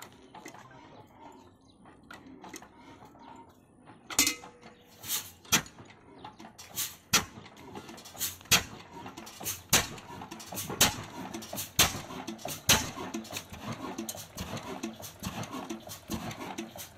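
Old Ruston & Hornsby-type single-cylinder diesel engine cold-starting. After a few quiet seconds of faint clinks, it starts firing about four seconds in, with loud sharp exhaust beats settling to roughly one a second and a quicker mechanical clatter between them.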